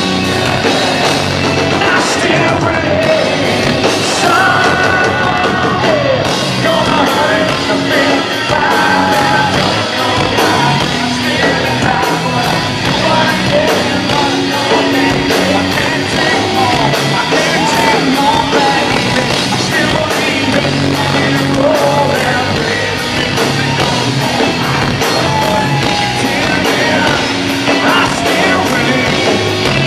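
Loud live rock band playing, with distorted guitars, drums and sung, partly yelled vocals throughout.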